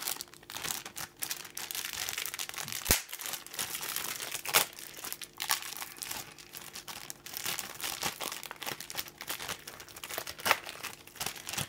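Clear plastic bags holding plastic model-kit runners crinkling as they are handled, with a few louder crackles.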